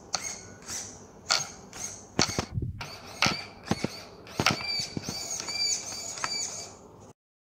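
Arrma Granite 4x4 RC truck driving in short bursts on a hard floor: a high electric whine from its drivetrain rises and falls with each burst, mixed with sharp clicks and knocks from the chassis and tyres. The sound cuts off suddenly near the end.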